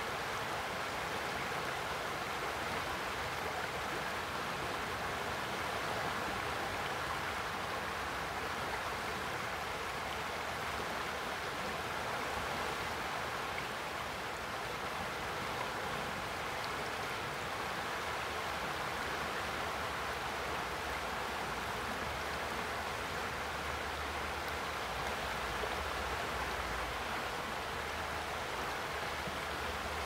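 The Boise River in spring flow, rushing steadily over a shallow riffle and a submerged log: a constant, even hiss of moving water.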